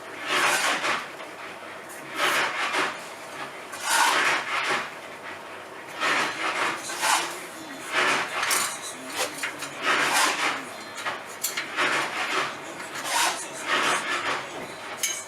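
Repeated rough rubbing strokes on a surface, one every second or two, as in hand sanding or polishing work on a bicycle.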